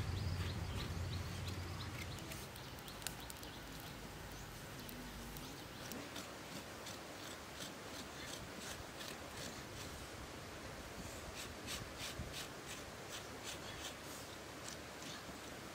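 A knife blade scraping hair off the hide of a calf carcass in short repeated strokes, about two or three a second, thickest in the second half. A low rumble fades out over the first two seconds.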